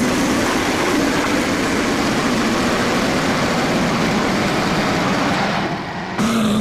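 Portable band sawmill's engine running steadily at speed, with a constant low hum under a dense, even noise. Near the end the sound changes abruptly to a slightly lower hum.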